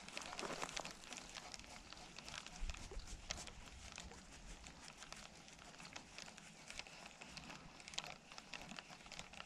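Faint steady hiss with scattered light ticks and rustles from a fishing rod and reel being handled.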